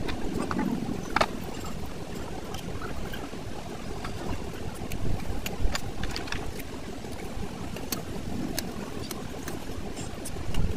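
Scattered light metallic clicks and taps as the air dryer's valve cover and bolts are handled and seated by hand, over a steady low rumble.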